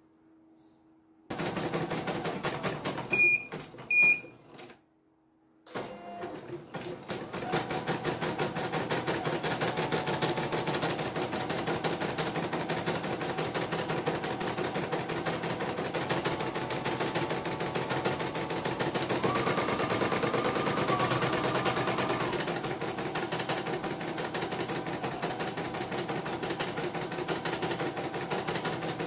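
Portable computerized embroidery machine stitching at speed, a fast run of needle strokes, as it is test-run after a power supply repair. About three seconds in two short beeps sound and the stitching stops for about a second, then it starts again and runs steadily.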